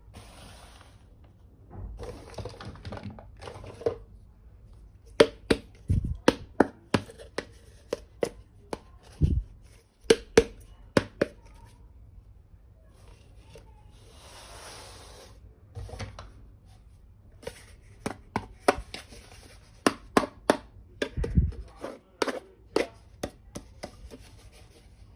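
Miniature plastic toy kitchen pieces being handled and unpacked: sharp clicks and taps in quick runs, with plastic packaging crinkling about two seconds in and again halfway through.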